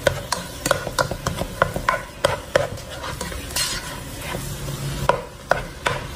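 Ground chicken sizzling in a little water in a pot as a spoon stirs and breaks it up. The spoon knocks and scrapes against the pot irregularly, about twice a second.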